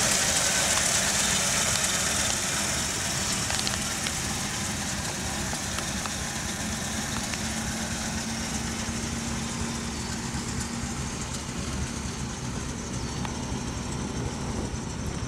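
1961 Chevrolet Impala's 283 V8 idling steadily. It is loudest at first and eases off over the first few seconds, then stays steady.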